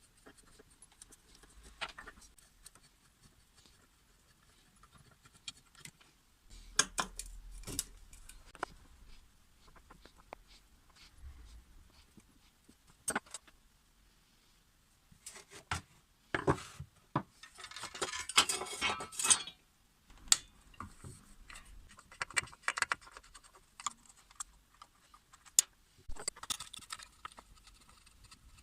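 Hand tools and small metal parts being handled during repair work on a power cutter: irregular clicks, clinks and knocks, with a longer stretch of rattling and scraping about two-thirds of the way through.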